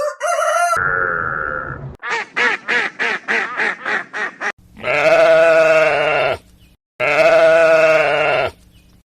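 A string of farm animal calls: a short high call and a brief held tone, then a rapid stuttering run of about ten notes, then two long, wavering bleats.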